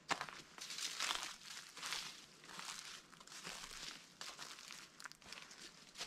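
A hiker's footsteps on a dirt trail, each step a short scuffing crunch, about one a second at a steady walking pace.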